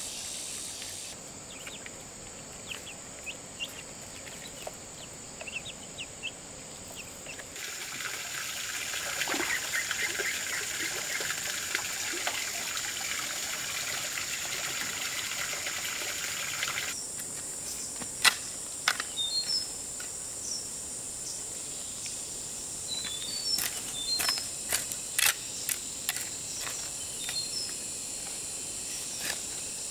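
Forest ambience of insects droning steadily on a high note. A louder hiss fills a stretch in the middle. In the second half a hoe chops into soil in a series of sharp strikes, among short bird chirps.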